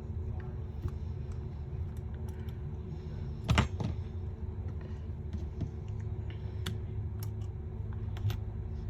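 Scattered small clicks and taps of tools and parts being handled during a phone repair, with one louder knock about three and a half seconds in, over a steady low hum.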